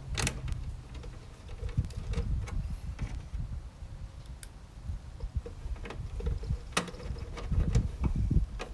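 Scattered small clicks and light metal-on-plastic handling as the 1/4-inch screws holding the temperature gauge pod are started into the back of the instrument cluster, over a continuous low rumble.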